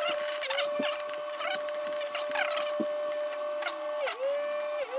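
Electric chainsaw-chain grinder running with a steady motor whine while its wheel grinds the cutters of a steel chain one after another: several short grinding rasps with a falling ring. Near the end the motor's pitch sags briefly as the wheel bites harder.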